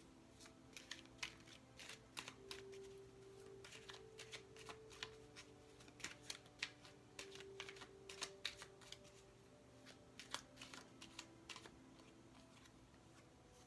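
Irregular light clicks and taps of tarot cards being handled, several per second, over faint sustained background-music tones.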